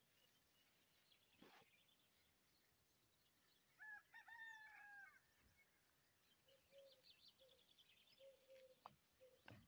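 A rooster crowing once, faintly, about four seconds in: one multi-part call with a long held middle. Faint bird calls and chirps follow later.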